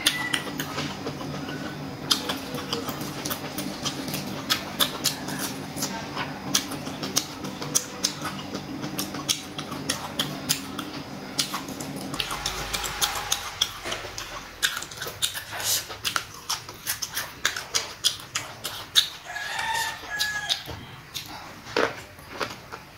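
Close-miked chewing of boiled pork intestine, a rapid run of crisp crunches and wet clicks. A steady low hum stops about halfway through, and a few short calls are heard in the background near the end.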